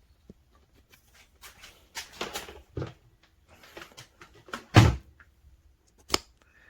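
A plastic shop vacuum being handled against its wall-mount bracket: rustling scrapes and knocks, one loud clunk about five seconds in, then a sharp click near the end.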